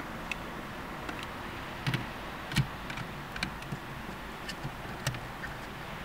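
Plastic clicks and taps from a phone in its case being handled on a windshield suction mount, several short sharp ones with the loudest about two and a half seconds in, over a steady low hiss.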